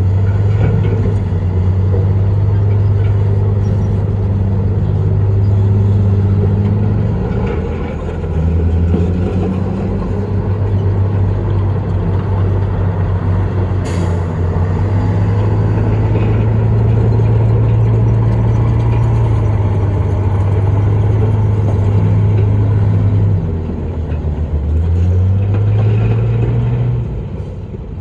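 Heavy earthmoving machine's diesel engine running hard under load. The engine note dips twice, about eight seconds in and again near the end, then climbs back up. A single sharp click sounds about halfway through.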